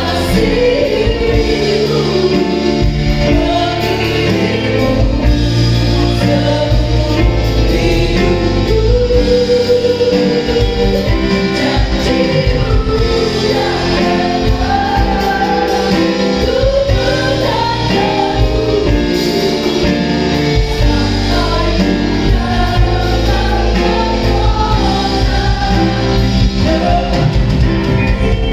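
A worship team of several male and female singers singing a gospel song in unison and harmony, backed by a live band of keyboard, electric guitars, bass and drums.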